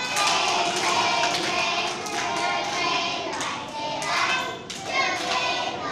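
A group of young children singing together, with hand claps recurring through the song.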